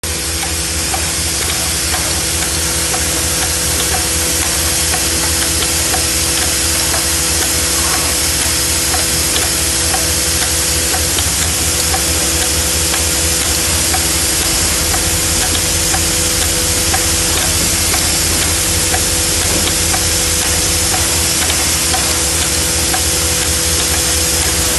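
Automatic odd-form component insertion machine running: a steady hiss and hum with a regular run of light clicks as its gripper heads work.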